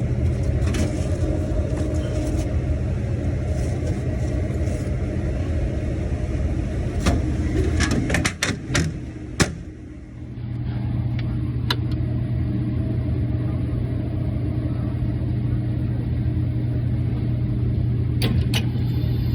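Kairak refrigerated table-top unit running with a loud, steady, low hum, the noise it is faulted for. About eight seconds in the hum briefly drops away amid a few sharp clicks, then comes back steady.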